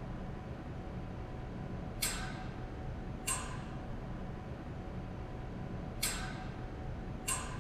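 Steady low room hum, with four short, sharp sounds in two pairs, about a second and a half apart within each pair.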